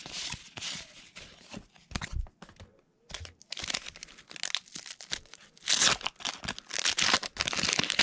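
Baseball cards riffled and handled by hand, then a 1982 Donruss wax pack being torn open, its wax paper wrapper crinkling and tearing, loudest in the last two seconds.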